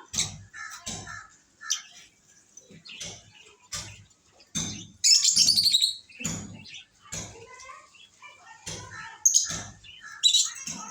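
Pet lovebirds chirping in short, repeated calls, with a louder, shrill stretch of calling about five seconds in that lasts about a second.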